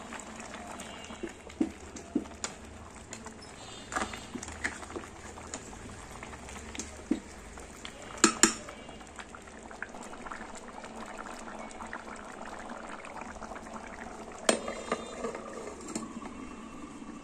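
A pot of biryani bubbling as it cooks, with scattered clinks and knocks of a utensil against the pot; the loudest knocks come about halfway through and again later on.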